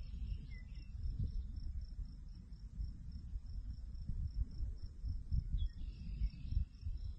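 Wind buffeting the microphone in low, gusty rumbles, over crickets chirping steadily about three to four times a second. A bird chirps briefly at the start and again about three-quarters through.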